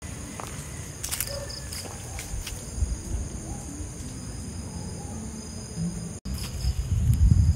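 Steady high-pitched chorus of insects at dusk, several continuous trills sounding together. Under it a low rumble on the microphone, loudest near the end, with a brief dropout a little after six seconds.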